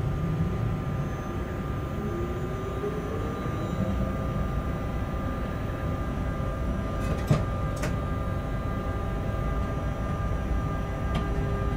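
Freight locomotive cab noise while running: a steady rumble with several steady tones and a whine that rises in pitch over the first few seconds. A couple of sharp clicks come about seven seconds in, and another near the end.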